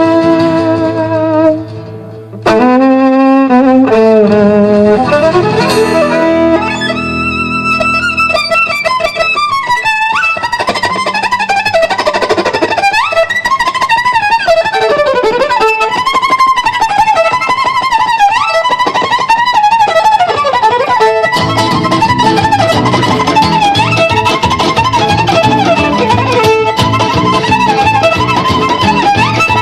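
Live violin playing a gypsy-style tune: slow held notes at first, then quick high runs and swooping slides imitating birds chirping. About 21 seconds in, the accompaniment comes in with a quick, steady rhythm under the violin.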